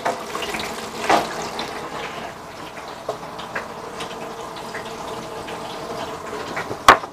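Stuffed salmon balls frying in a deep fryer, the hot oil bubbling with a steady sizzle. A sharp click comes near the end.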